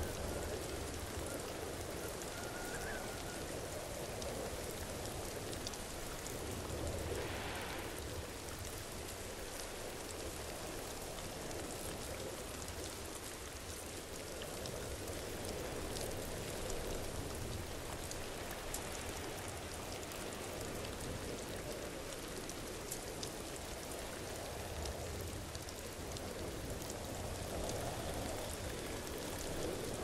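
Waterfall: a steady rush of falling water with fine splashing, swelling and easing slightly in strength.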